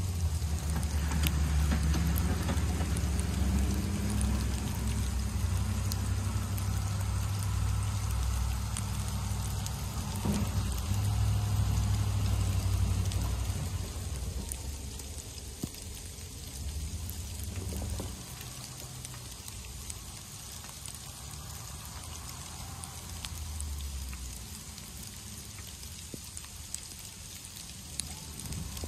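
Snowplow truck engines running in low gear as a pickup with a front plow drives close by. The rumble is loudest in the first half and fades about halfway through, over a steady patter of wet hail falling.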